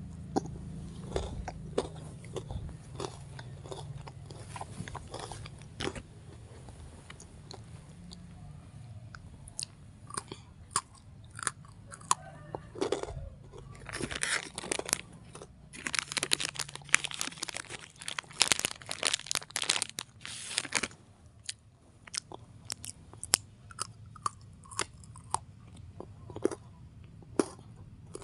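Crunchy chewing: a long series of sharp crunches and clicks, thickest in a busy run around the middle.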